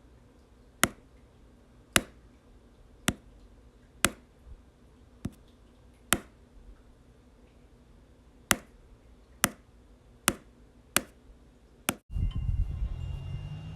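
Sharp tap sound effects, one for each boop on an animal's nose, about ten of them at roughly one-second intervals with a longer gap in the middle. Near the end a louder, low, steady sound cuts in abruptly.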